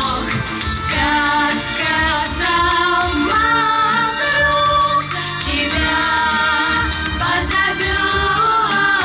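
Children's vocal ensemble singing a pop song together over a backing track with a steady beat.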